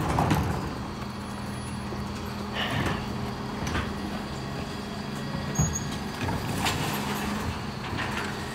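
Mercedes-Benz Econic bin lorry standing with its engine running, a steady low hum, while wheelie bins are wheeled up to and engaged on its Terberg OmniDEL rear lifts, giving several short knocks and clatters.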